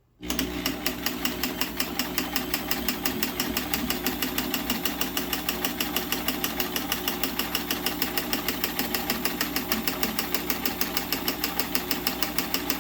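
Sears Kenmore 158.1703 sewing machine, fitted with a 36149 monogrammer attachment, running steadily as it stitches out a small monogram letter V. It starts right at the beginning, with an even, rapid stitch rhythm of about five or six needle strokes a second over the motor hum.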